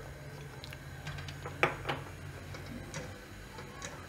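A few faint, short clicks over a low steady hum, from a steel pan of thick white sauce simmering on a lit gas burner.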